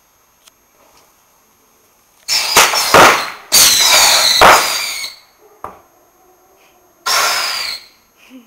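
Homemade firework going off in three loud hissing bursts: about two seconds in, again from about three and a half to five seconds, and near the end. The bursts carry sharp cracks and a falling whistle.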